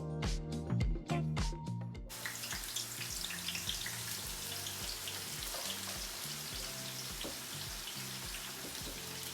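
Onions frying in hot oil in a pan: a steady sizzle with fine crackles that comes in about two seconds in. Background music with a low repeating bass line plays throughout.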